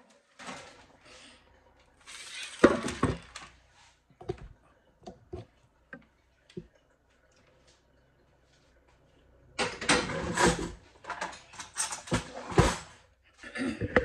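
Parchment paper rustling and crinkling as it is handled and laid over a baking sheet, with sharp knocks and clatters of the pan on the countertop. There is a short spell of handling near the start, scattered clicks, and a louder, busier spell about ten seconds in.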